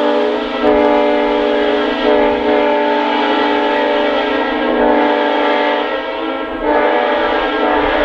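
Multi-chime locomotive air horn blown continuously: a loud, sustained chord of several notes that swells slightly a few times.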